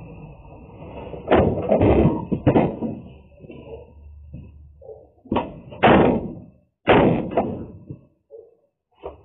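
Cardboard boxes knocking and scraping on a steel diamond-plate floor as they are pulled out and moved. There are heavy knocks in quick succession from about a second in, a second run of four around the middle, and lighter taps near the end.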